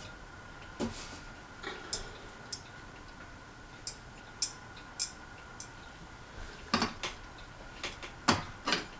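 Hampton Bay Courtney ceiling fan running, with a faint steady high hum and about a dozen light clinks and ticks at uneven intervals.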